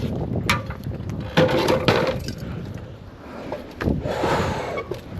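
Knocks and clatter of timber being handled, with a rougher scrape or rustle about four seconds in.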